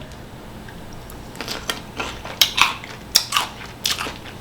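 Biting into and chewing crisp cucumber, a series of short, sharp crunches starting about a second and a half in.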